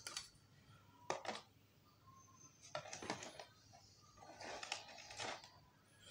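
Faint clicks and light rattles of LED downlights being handled and turned over, in three short spells.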